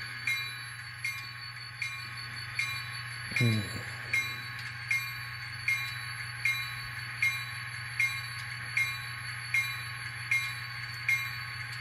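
Locomotive sound decoder of an N scale Atlas BNSF 2711 diesel (ESU LokSound) playing a steady diesel idle, with the bell ringing over it about once every 0.8 s. A brief low sound comes in about three and a half seconds in.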